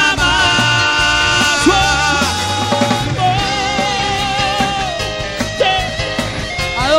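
Live cuarteto band music: a lead melody line holding long notes with vibrato over a steady bass line.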